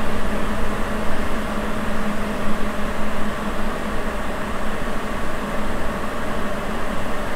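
Sapporo Municipal Subway 9000 series train running at speed through the tunnel on its rubber tyres, heard from inside the car: a steady, loud running noise with a steady hum.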